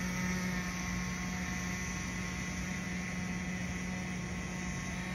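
Glow-fuel two-stroke engine of a nitro radio-controlled boat running flat out at steady revs, heard across the water as an even, high whine that slowly fades as the boat moves away.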